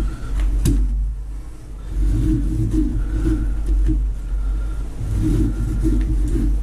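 Knife sawing through bowhead whale maktak (skin and blubber) on cardboard, in two runs of quick strokes, over a steady low hum.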